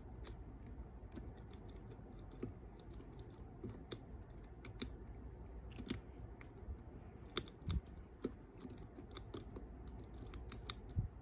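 Faint, irregular metallic clicks and scrapes from a picking wire and tension tool working the levers inside an ERA 5-lever padlock as it is being picked, a few clicks a second.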